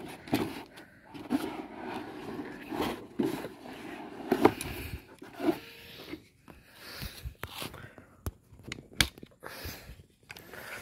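A partly plastic air rifle being lifted out of its moulded pulp packaging tray and handled: cardboard scraping and crunching, with scattered sharp clicks and knocks. The scraping is densest in the first half, and separate clicks follow.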